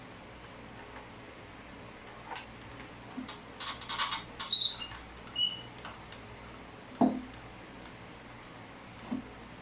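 Plumbing parts and tools being handled: scattered clicks and rattles, a couple of short metallic clinks around the middle, and a dull knock about seven seconds in.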